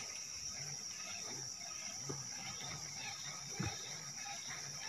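Insects droning with one steady high-pitched tone, with a single faint click about three-quarters of the way through.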